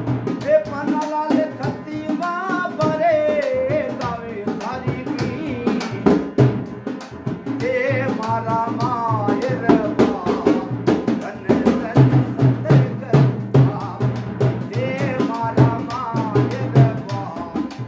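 Live Indian devotional folk music: a rope-tuned dholak barrel drum played by hand in a steady beat over a droning harmonium, with a man's voice singing phrases at the start, in the middle and near the end.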